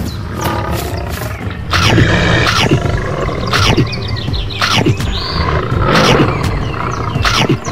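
Big-cat roar and growl sound effects, several loud roars in a row starting about two seconds in.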